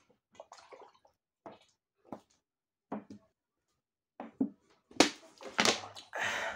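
A person gulping a fizzy soft drink from a large plastic bottle, a swallow roughly every half second, then several louder breathy gasps as the bottle comes down near the end.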